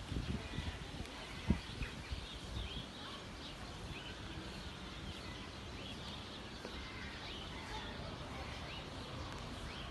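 Small birds chirping in short, scattered calls over a steady outdoor background hum, with a few low thumps in the first couple of seconds.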